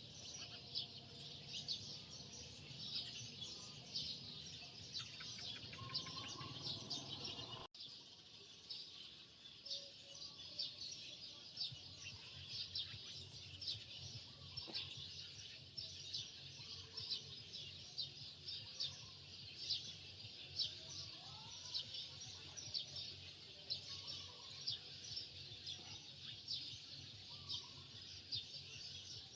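Many small birds chirping continuously in a dense chorus of short high chirps, with a few lower whistled notes and a faint low background hum. The sound drops out briefly about eight seconds in.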